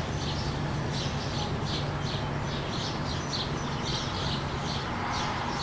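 Small birds chirping repeatedly, short high chirps a few times a second, over a steady low hum.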